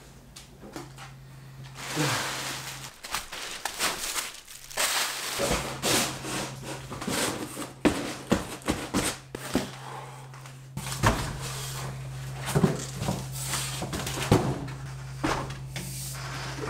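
Rustling, knocks and bumps of someone moving about a room and handling things, over a steady low hum that drops out for a while in the middle.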